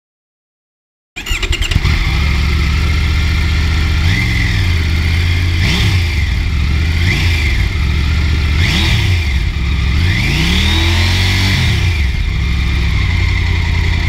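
2021 Triumph Tiger 900 GT Low's 888 cc inline-three engine running at idle, cutting in about a second in, with five throttle blips that rise and fall in pitch, the last one held longer.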